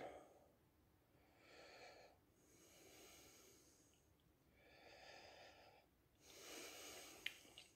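A man's faint, heavy breaths through the mouth: four slow, drawn-out breaths in and out while the heat of a fresh Carolina Reaper chili burns, with a small click near the end.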